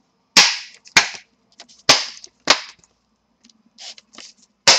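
Plastic snap clips of a Dell Inspiron 15 5567's bottom cover clicking into place as fingers press along its edge: five loud, sharp snaps, with a couple of fainter clicks before the last one.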